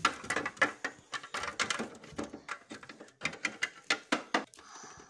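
Quick, irregular clicking and tapping of small plastic toy figures and dollhouse pieces being handled, several knocks a second.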